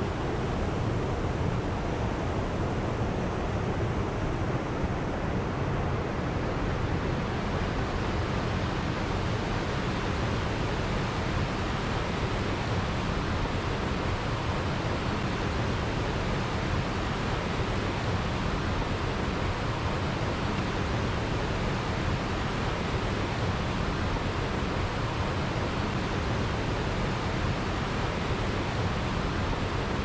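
Rushing water of a rocky mountain stream spilling over small cascades: a steady, unbroken rush.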